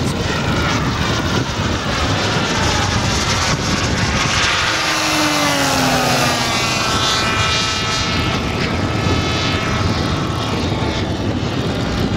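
Large-scale radio-controlled warbird models flying, their engines running continuously; about five seconds in, one makes a low fast pass and its engine note falls in pitch as it goes by.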